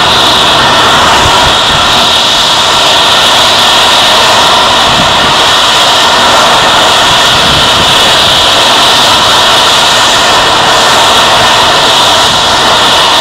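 Airbus A321neo's Pratt & Whitney PW1100G geared turbofan engines running at taxi power as the airliner taxis, a steady, loud high-pitched whine that holds level throughout.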